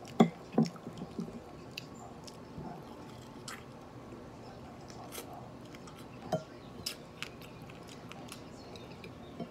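A person chewing and biting into fried pork ribs: scattered small mouth clicks and smacks, with a few louder ones about a quarter and half a second in and again around six seconds.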